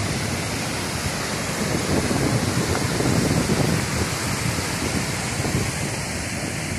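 Waterfall in full flow, its white water roaring steadily.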